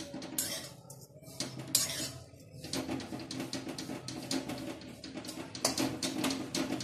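Metal spatula scraping and tapping against a steel kadhai in quick, irregular strokes as grated dried coconut is stirred while it dry-roasts.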